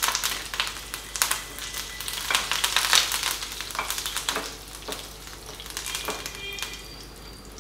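Curry leaves and cumin seeds crackling and sizzling in hot oil in a nonstick pan as a spatula stirs them. The spitting is loudest as the fresh leaves hit the oil and dies down toward the end.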